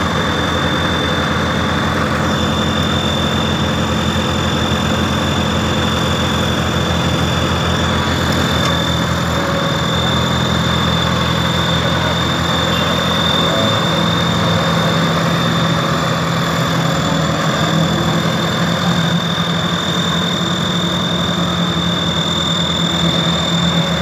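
Engine of a tandem steel-drum road roller running steadily at close range, with a constant high whine over its low drone.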